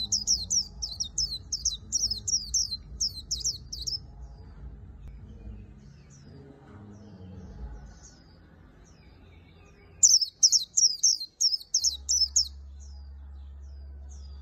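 Caged white-eye singing its fast chattering song of high, quickly falling notes, about four a second. A long run opens the song, softer scattered notes follow, and a second loud burst comes about ten seconds in.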